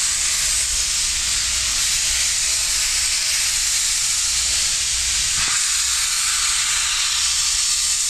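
Norfolk & Western 611, a J-class 4-8-4 steam locomotive, hissing steam steadily, with a low rumble underneath.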